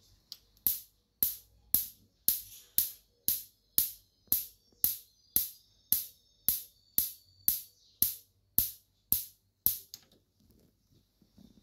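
Gas hob's electronic spark igniter clicking, about two sharp snaps a second, while the ignition knob is held in; it stops near the end. Each click is a spark firing, a sign that the spark generator is working.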